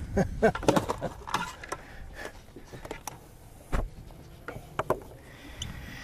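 Clattering clicks and knocks of gear being stowed in a boat's deck storage hatch, with one heavier thump about four seconds in.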